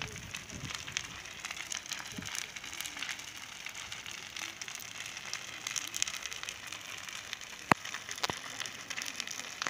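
Burning log garden house crackling: a steady hiss full of small snaps and pops, with two sharp louder pops about half a second apart near the end, the first the loudest.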